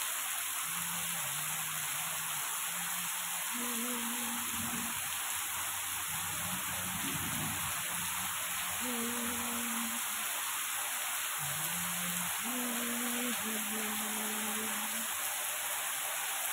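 Heavy rain falling steadily, a continuous hiss, with faint music underneath: a slow, low melody of held notes.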